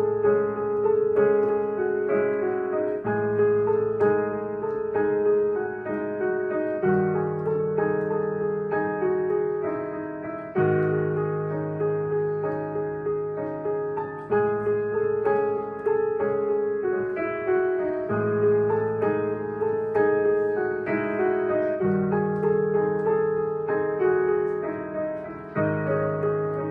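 Solo piano music: a repeating melody of struck notes over held low chords that change every three to four seconds.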